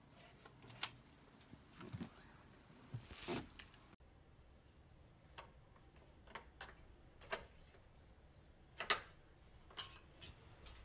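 Irregular light clicks and taps, about a dozen, as a cat paws at a window frame and its thumb-turn lock; the loudest is a sharp click about nine seconds in.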